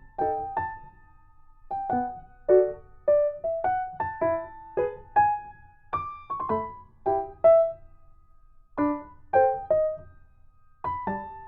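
Background piano music: a slow, simple melody of separate notes with short pauses between phrases.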